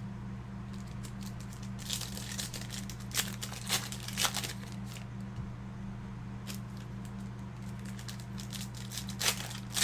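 Crinkling of trading-card pack wrappers being handled, in short bursts about two to four seconds in and again near the end, over a steady low hum.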